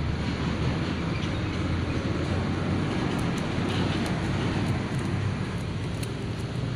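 A steady low rumble of outdoor background noise, with a few faint ticks in the second half.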